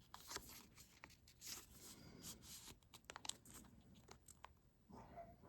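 Faint rustling and small scattered clicks of a trading card being slid into a thin plastic card sleeve.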